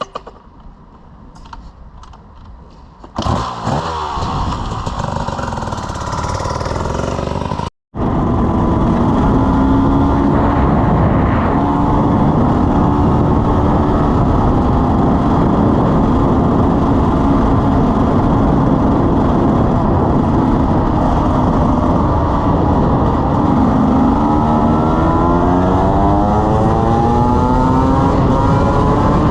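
KTM 300 EXC Six Days single-cylinder two-stroke enduro motorcycle engine, coming in loudly about three seconds in and then running steadily, with the revs rising again and again near the end.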